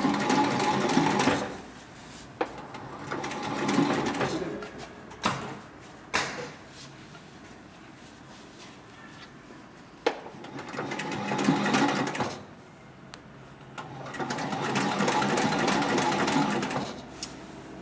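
Heavy-duty decorative-stitch sewing machine (model 204-102 MD) stitching in four short runs of a second or two each, with single sharp clicks in the pauses between runs.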